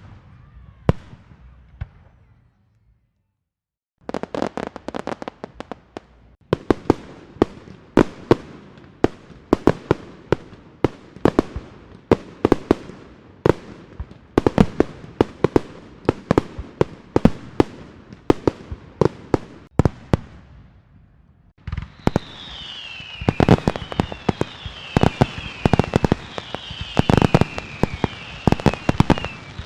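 Fireworks going off: a few bangs, a short lull, then a long run of sharp bangs and crackling reports, a couple or more each second. From about 22 seconds in, repeated whistles falling in pitch join the bangs.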